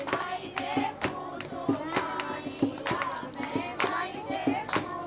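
A group of women singing together, kept in time by sharp hand-claps about twice a second.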